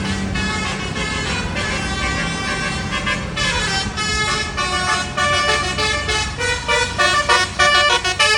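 A bus engine runs, then from about three and a half seconds in a Basuri telolet multi-tone bus horn plays a fast tune of short, changing notes that gets louder near the end.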